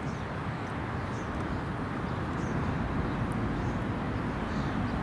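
Steady outdoor background noise of wind and road traffic, rising slightly about halfway through, with a few faint high chirps.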